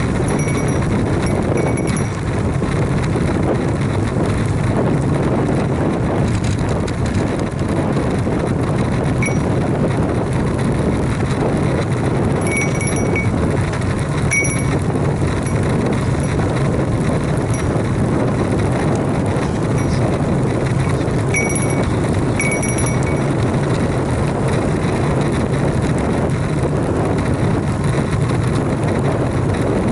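Steady rush of wind over an onboard camera microphone with road bike tyre and road noise while riding at speed. A few brief high tones break in now and then.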